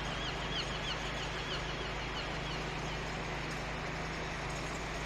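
Steady city traffic noise with a constant low hum. A small bird chirps quickly and repeatedly, about three or four short falling notes a second, for the first couple of seconds.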